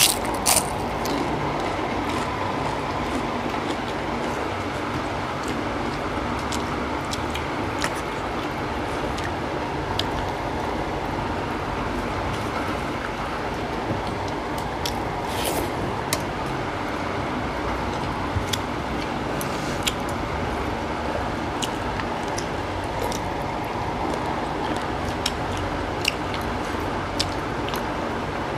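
Two people eating rice and curry by hand: scattered wet mouth smacks, chewing clicks and the squish of rice being mixed on steel plates. Under them runs a steady background noise with a faint hum.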